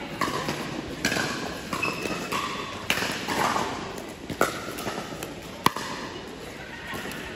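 Pickleball rally: a hard plastic ball being struck with paddles and bouncing on the court, four sharp pops a second or two apart, the loudest near the end, in a large echoing indoor hall with faint voices from other courts.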